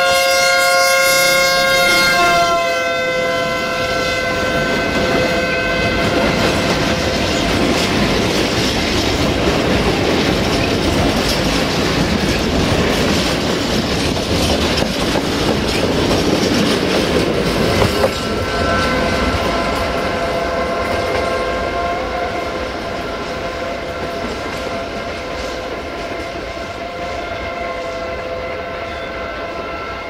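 LDH 1250 diesel-hydraulic locomotive sounding its multi-tone horn on approach, cut off after about two and a half seconds. Its freight wagons then rumble and clatter past close by, with one sharp clank a little past halfway. The horn is heard again, fainter, through the last third.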